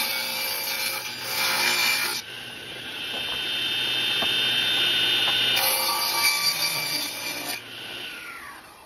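Table saw ripping weathered white oak barn boards. There are two loud cuts of about two seconds each, with the blade running free in a steady whine between them. Near the end the whine falls in pitch and fades as the saw winds down.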